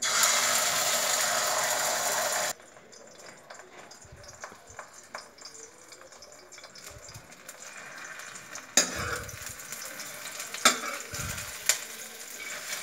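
Egg frying in oil in a wok: a loud sizzle for about two and a half seconds that cuts off suddenly, then a quieter sizzle. A metal ladle scrapes and knocks against the pan, with a few sharper knocks in the second half.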